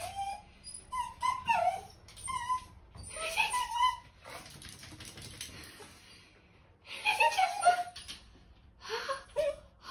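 A small dog whining and yelping in short bursts of high, wavering calls, with a lull of a couple of seconds in the middle.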